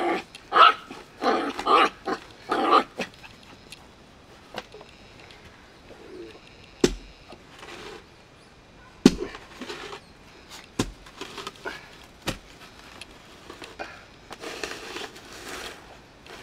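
Puppy yapping in a quick run of short barks, then a few sharp knocks well apart. Near the end comes the scrape of a spade cutting into soil.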